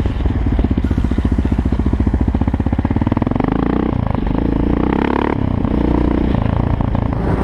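Quad bike (ATV) engine running, its firing pulses plain through the first seconds; the engine note shifts around four and again around five seconds in.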